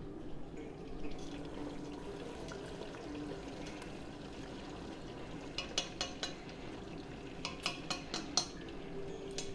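Food frying in a pan of hot oil: a steady sizzle, with two clusters of sharp clicks about six and eight seconds in.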